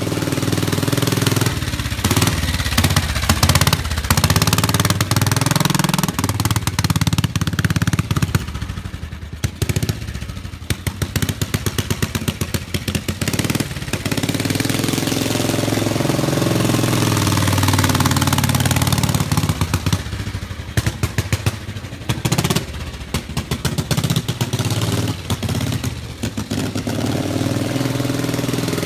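A 1955 Matchless trials motorcycle's single-cylinder four-stroke engine running as it is ridden slowly, its revs rising and falling. Twice it sinks to a slow, uneven beat of separate firing strokes.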